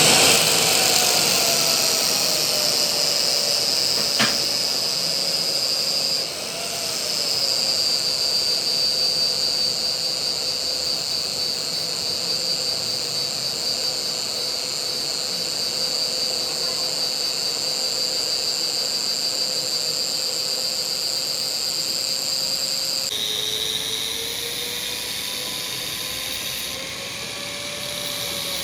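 A power tool running steadily with a high whine and hiss, with one sharp click about four seconds in. The sound shifts and eases a little about 23 seconds in.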